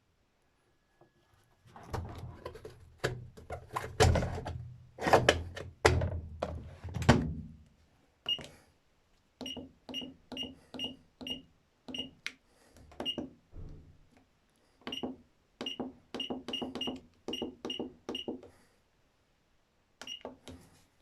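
Daewoo DWF-750MPS top-loader's control panel beeping as its buttons are pressed: about twenty short beeps of the same pitch, each with a click, irregularly spaced. Before them, in the first few seconds, comes a run of loud knocks and clunks.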